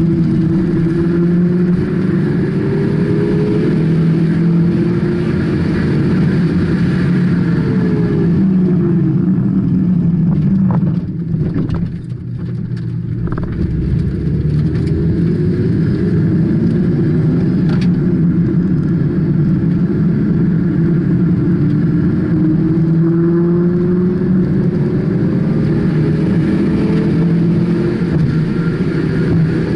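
Car engine heard from inside the cabin while driven hard on a race track, its pitch repeatedly rising and falling as it revs through the gears. It drops away briefly about eleven seconds in, then climbs again in a long rising pull.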